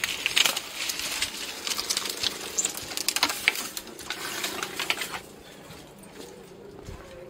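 Bundle of dry straw rustling and crackling as it is carried past: a dense run of crisp crackles that dies down about five seconds in.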